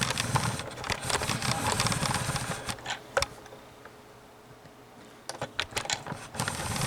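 Handling noises: rustling with a run of clicks and light knocks as objects are moved about, then a quieter stretch, then more clicks and knocks near the end.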